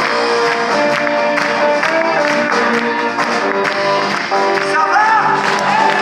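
Live blues-rock band playing at full volume: electric guitars and bass over a drum kit, with sustained and bending guitar notes and steady drum hits.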